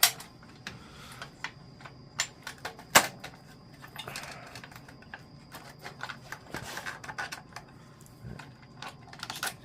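Irregular light clicks and taps of hand work on motorcycle parts, with one sharp knock about three seconds in.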